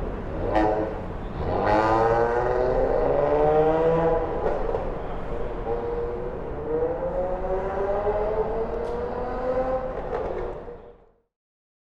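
Engines of passing vehicles accelerating, their pitch rising several times, with a couple of sharp clicks, fading out near the end.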